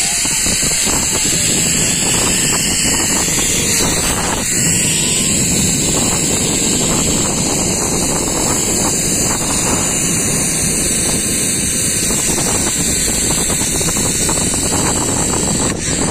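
Zipline trolley pulleys running along the steel cable as a rider slides down: a steady, loud whirring rush.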